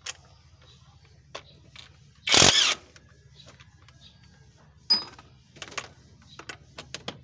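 A power driver runs in one short burst of about half a second, backing out the screws that hold the throttle body on. Scattered clicks and taps of metal tools are heard around it, one of them sharp about five seconds in.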